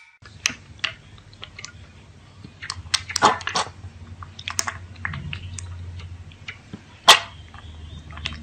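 Piglet slurping milk from a stainless steel bowl: irregular wet smacks and clicks, with a louder cluster about three seconds in and a sharp smack about seven seconds in, over a low steady hum.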